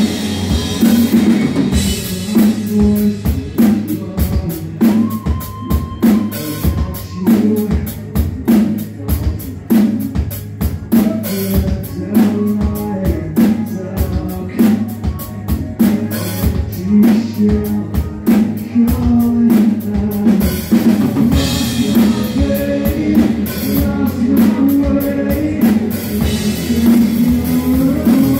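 Live rock band playing a song at full volume: electric guitars over a drum kit beating a steady rhythm of kick and snare hits.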